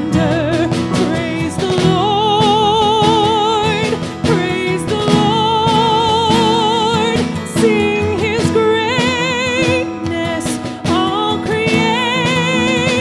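Live worship song: a woman singing long held notes with a wide vibrato over a band with a drum kit and cymbals.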